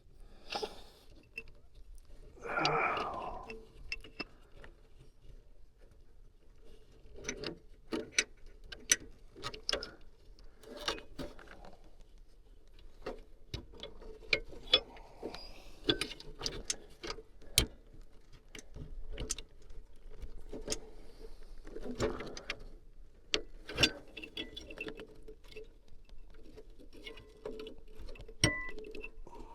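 Hands working with wiring and a small electrical part: irregular light clicks, taps and rattles, with a brief rustle a couple of seconds in, over a faint steady hum.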